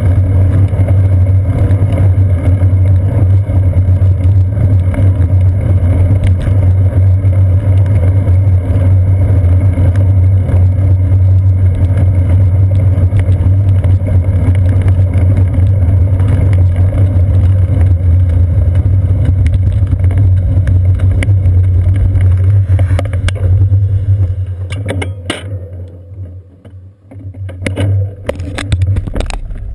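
Wind buffeting and road vibration on a seat-post-mounted GoPro Hero 2 in its housing while a bicycle rides along, heard as a loud, steady low drone. About 25 seconds in it dies away as the bike slows and stops, and a few knocks and rattles follow.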